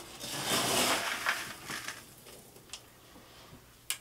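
Gritty bonsai substrate grains scraping and crunching as the bonsai pot is turned and handled, loudest in the first second and a half, then a few light clicks.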